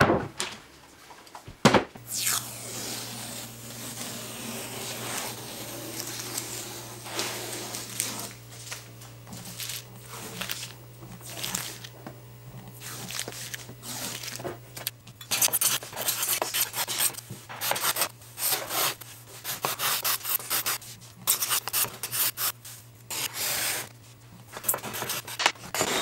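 Steel card scraper dragged across a dried, glued-up sapele panel in quick, short strokes to take off the hardened glue squeeze-out. The strokes come thick and fast in the second half, over a steady low hum; before that there is lighter rubbing on the wood.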